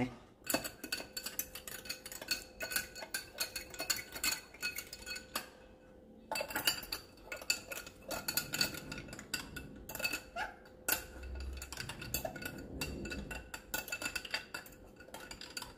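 A spoon stirring in a drinking glass, clinking rapidly and repeatedly against the glass as sharbat powder is dissolved, with a short pause of about a second a little over a third of the way in.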